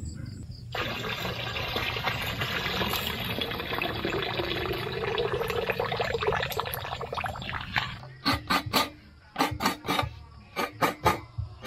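Water splashing and sloshing in a stainless steel basin as fish pieces are rinsed by hand. About eight seconds in it cuts off, and a quick series of short scraping strokes follows, about three a second: fresh coconut meat being scraped out of the shell.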